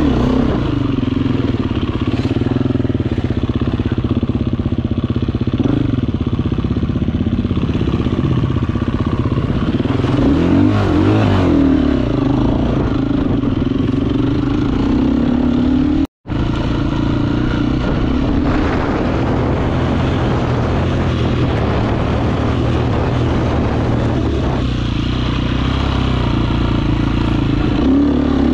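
Dirt bike engine running as it is ridden, its pitch rising and falling with the throttle in a few short revs. The sound drops out completely for an instant a little past halfway.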